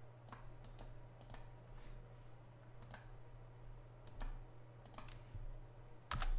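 Computer mouse and keyboard clicks while a command is copied and entered into a terminal: single sharp clicks spaced irregularly, with a louder pair of clicks near the end. A low steady hum runs underneath.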